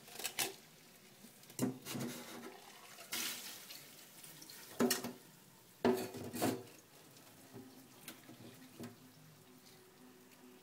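Sharp knocks and clatters in a stainless steel sink, about six in the first seven seconds and fainter ones after, as a drinking glass is handled and a frozen disc of frost is tipped out of it onto the steel.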